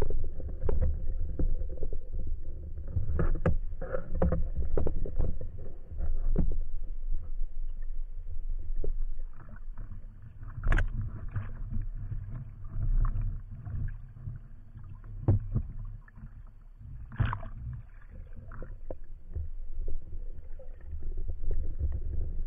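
Water sloshing and churning around a speargun-mounted camera housing as a spearfisher swims at and just below the surface, with a steady low rumble and many short clicks and knocks. Louder knocks come about eleven seconds in and again about seventeen seconds in.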